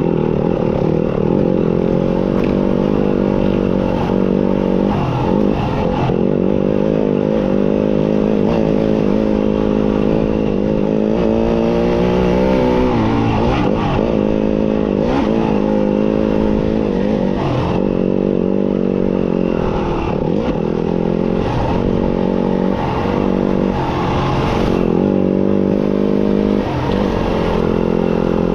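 Yamaha off-road motorcycle engine running under constantly changing throttle, its pitch rising and falling every few seconds as the throttle is opened and closed, with a few brief knocks.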